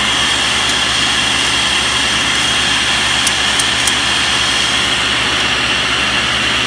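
Steady whir of a running woodshop machine, unchanging throughout, with a few light clicks from a tape measure being handled a little past the middle.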